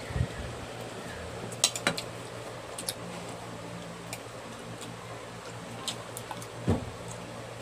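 Metal spoons and forks clinking now and then against a ceramic bowl and plate during a meal. There are half a dozen sharp clinks spread a second or so apart, with a couple of dull bumps.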